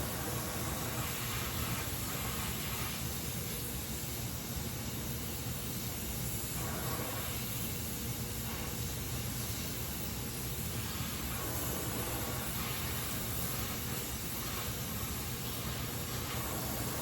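Gas welding torch flame hissing steadily while aluminium is flame welded.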